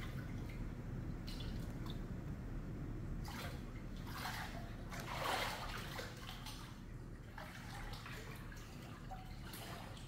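Water sloshing and splashing lightly several times, loudest about five seconds in, over a steady low hum.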